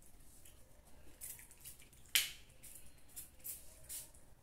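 Hand-pump spray bottle misting onto hair: several short hisses, the loudest, about halfway in, starting with a sharp click of the trigger. The trigger is stiff and hard to work.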